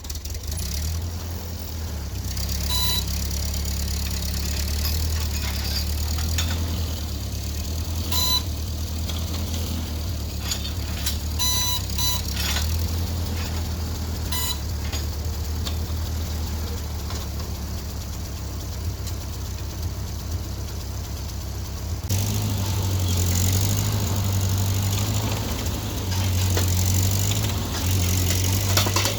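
Tractor engine running steadily, getting a little louder about two thirds of the way through, with a handful of short high beeps in the first half.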